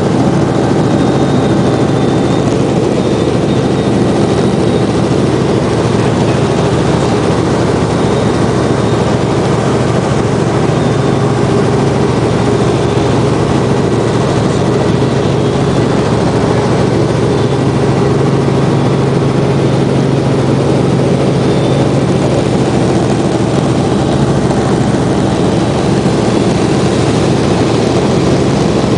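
Cabin noise of a Robinson R44 Clipper II helicopter in flight: its six-cylinder Lycoming piston engine and rotors running with a loud, steady drone and a constant low hum.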